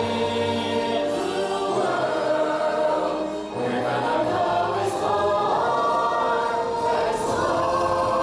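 A musical number from a live stage show: several voices singing together over recorded accompaniment, holding long notes.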